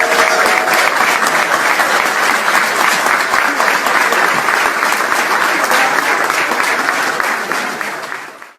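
Crowd applauding steadily with many overlapping claps, fading out near the end.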